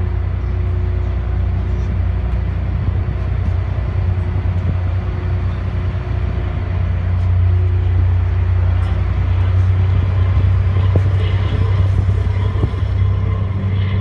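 Ferry's engines running with a steady low drone, under a rush of wind and water, growing a little louder about halfway through.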